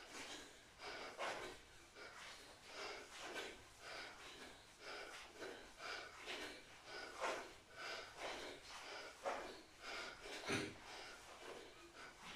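A person breathing hard in short, rhythmic puffs while exercising, about two breaths a second.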